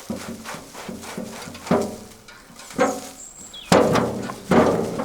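Heavy woody thuds of a tool chopping at roots in the ground, four strikes about a second apart, each with a short ringing tail.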